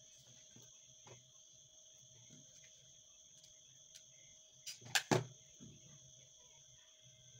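A hot glue gun set down on a wooden tabletop: three quick knocks close together about five seconds in, over faint rustling of hands handling feathers. A steady high-pitched drone runs underneath throughout.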